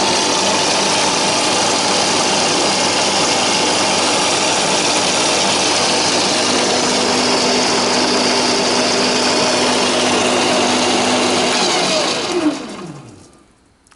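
Lathe motor running steadily and driving the lathe through a B.S.A. motorcycle gearbox, a loud whirr of motor and gears. About twelve seconds in it is switched off, and the whirr falls in pitch as it runs down to a stop.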